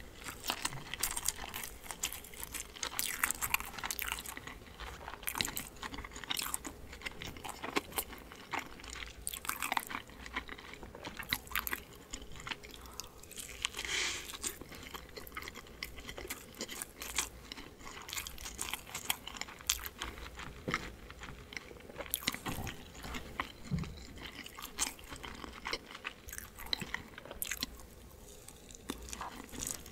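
Close-miked eating sounds: a person biting into and chewing large kimchi-filled dumplings, with many small mouth clicks and smacks throughout.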